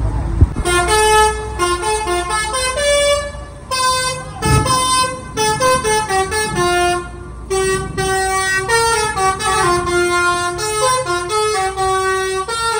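A bus's multi-tone musical air horn, a 'telolet' basuri horn, playing a quick tune of short held notes that step up and down, with a brief break about four and a half seconds in.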